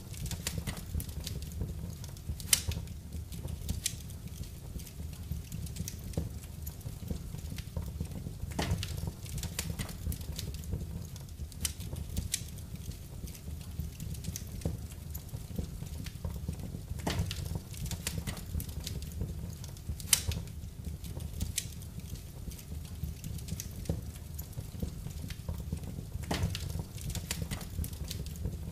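Wood fire burning in a fireplace: a steady low rumble of flames with irregular crackles and sharp pops.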